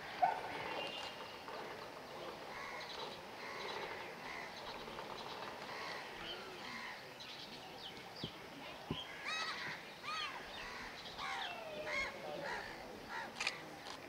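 Faint outdoor background with scattered bird calls. The short arched calls come mostly in the second half, with a couple of sharp clicks just after the middle.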